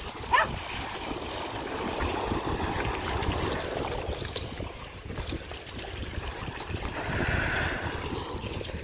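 Shallow sea water sloshing and splashing as dogs wade and swim through it, over a steady low rumble. A dog gives one short yelp just after the start.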